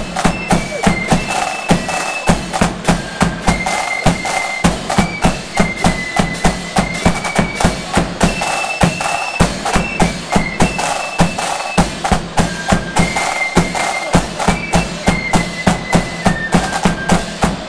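Flute band playing a march: flutes carry a high melody over rattling side drums, a steady bass drum beat and cymbals.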